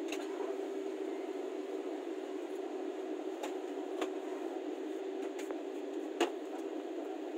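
Steady hum inside a parked airliner's cabin, with a constant tone running through it and a few light clicks, the sharpest about six seconds in.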